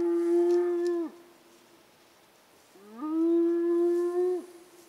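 Spotted hyenas whooping: two long calls, each sliding up briefly and then held on one steady pitch.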